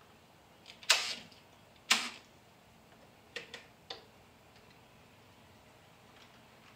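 Two loud, sharp clicks about a second apart, then three fainter clicks in quick succession.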